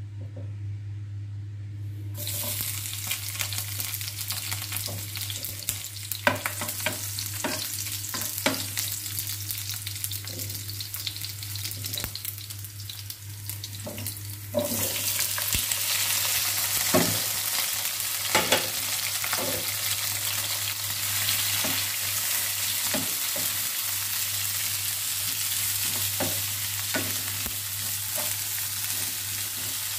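Hot oil sizzling in a nonstick frying pan. About halfway through, sliced onions, tomatoes, ginger and chilies are tipped in and the sizzle jumps louder. A wooden spatula scrapes and taps against the pan as they are stirred, over a steady low hum.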